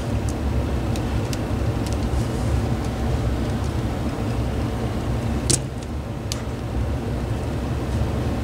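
The Honeywell HT-904 fan's electric motor is switched on and humming steadily with its shaft locked up, stalled rather than spinning. A sharp click comes about five and a half seconds in.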